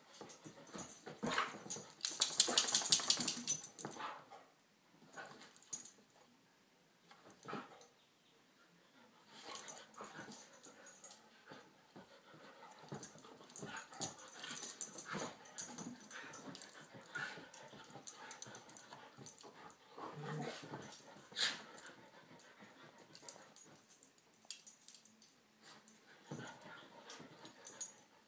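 Two dogs play-fighting, growling in irregular bursts, loudest about two to four seconds in, with a lull for a few seconds before the growls pick up again in short bursts.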